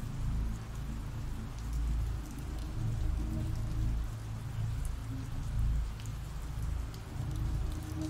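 Steady rain sound effect, an even patter of rain, with a low drone swelling and fading underneath.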